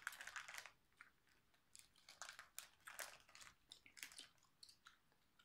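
Faint chewing of chewy fruit candies with light crinkling of a candy wrapper, in short scattered bursts.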